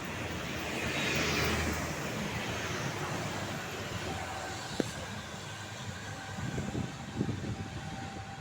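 Road traffic noise, swelling as a vehicle passes about a second in, with one sharp click near the middle.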